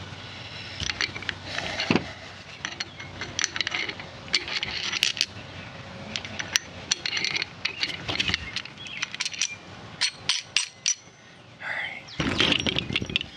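Steel crimping dies being handled and seated in a hydraulic lug crimper's head: an irregular string of metal clicks, clinks and scrapes, with a few ringing tings near the end.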